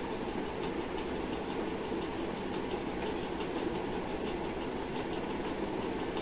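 A steady mechanical whir in the background, with faint light ticks now and then.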